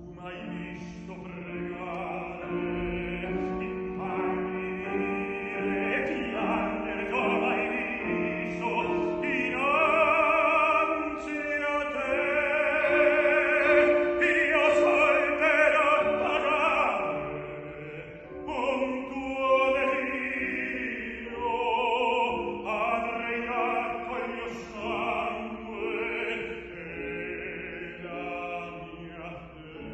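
Operatic tenor singing with grand piano accompaniment. The voice swells to its loudest on long held notes with vibrato in the middle, then sings softer phrases over the piano.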